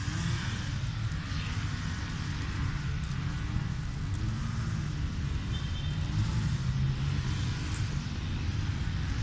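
A steady low rumble with a faint hiss above it.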